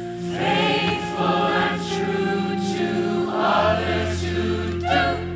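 Large stage ensemble singing together in chorus over a musical accompaniment with sustained low bass notes, the sung phrases swelling and falling away several times.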